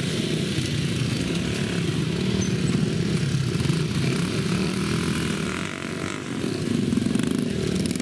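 Several small off-road motorcycles running together at close range, their engines overlapping and rising and falling in pitch as they ride past.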